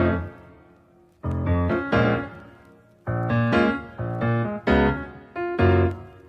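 Background music: piano chords struck about once a second, each ringing and fading before the next.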